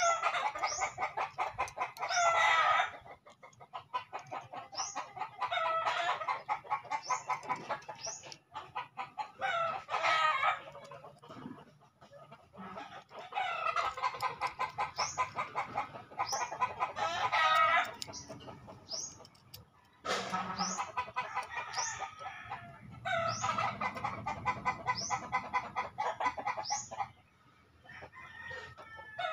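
Chickens clucking, with roosters crowing, in repeated bouts of calls a few seconds long separated by short pauses.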